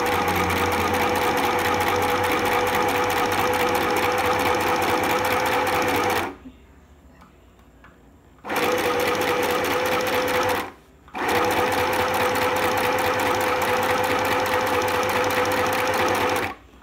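Small Sew Simple electric sewing machine fitted with a knit foot, running forward straight stitches with a steady motor whine. It sews for about six seconds, stops for about two, then runs again in two stretches split by a brief stop, and stops just before the end.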